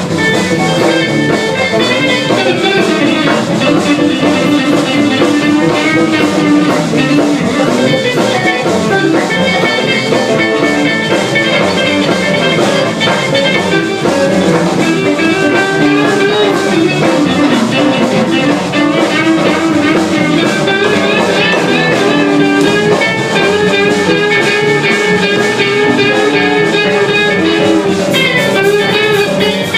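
Live band jamming: electric guitar playing bluesy lines over a drum kit and bass.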